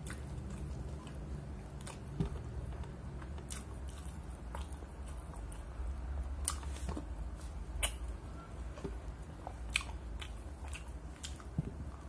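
Close-up chewing and biting of a chicken burger with lettuce, with scattered sharp crunches and wet mouth clicks.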